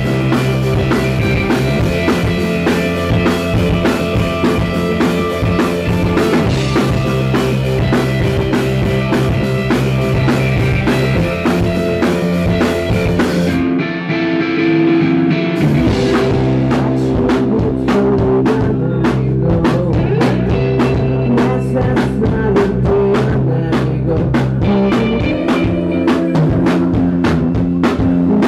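Rock band playing live, with drums, bass guitar and guitar, recorded loud and close so the sound breaks up and distorts. About halfway through, the drums and low end drop out for about two seconds, then the full band comes back in.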